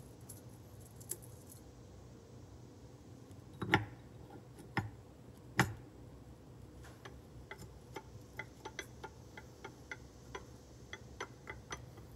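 Metal parts of a Can-Am Smart-Lock front differential clicking as the clutch pack's inner hub is twisted by hand to line up its splines and seat it flush in the case. There are a few sharper knocks about four to six seconds in, then a run of small quick ticks.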